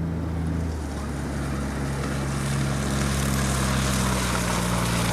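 Truck engine running steadily, its pitch shifting slightly about a second in, with a rushing noise of wind or tyres over it.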